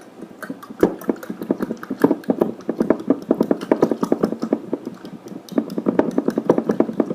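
Hot water being swirled round in a glass mason jar, sloshing, with quick rapid knocks and clinks against the glass, starting about half a second in.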